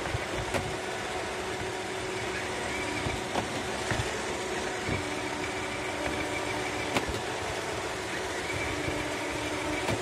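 iRobot Roomba 618 robot vacuum running: the steady whir of its vacuum motor and brushes, with a few short clicks and knocks, the sharpest about seven seconds in.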